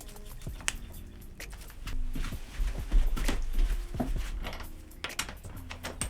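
Metal clinks and knocks of bicycle parts and tools being handled during assembly, busiest in the middle, over background music with sustained notes.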